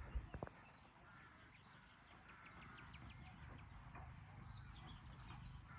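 Near silence with faint, distant frogs calling, including a quick run of clicking calls in the middle.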